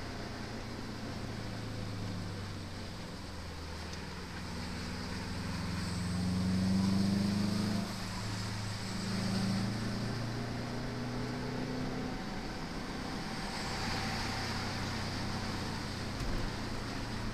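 1998 Subaru Impreza WRX STi's turbocharged flat-four engine, heard from inside the cabin while driving. It pulls up through the revs from about four seconds in, drops off suddenly near eight seconds, and pulls briefly again, over steady road and wind noise.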